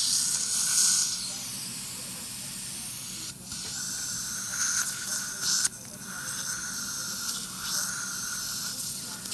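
Dental surgical suction tip hissing steadily as it draws air and blood from the implant site, with two brief dips in the hiss.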